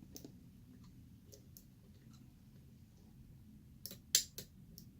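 Lock pick working the pin stacks of a 40 mm padlock under tension, making scattered light metallic clicks, then a few sharper, louder clicks near the end.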